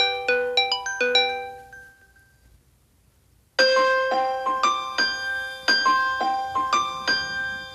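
LG V20 alarm tones: a quick melody of bright, chiming notes fades out about two seconds in. After a second and a half of near silence, the next alarm tone starts abruptly, a slower melody of bell-like keyboard notes.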